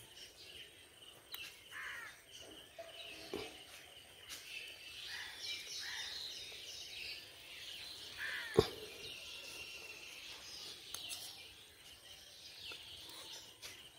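Faint outdoor ambience with small birds chirping now and then, and a single sharp click about eight and a half seconds in.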